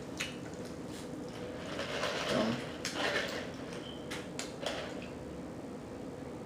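Close-up chewing and lip smacking while eating a sandwich, with several short wet mouth clicks. There is a short hum in the throat about two and a half seconds in.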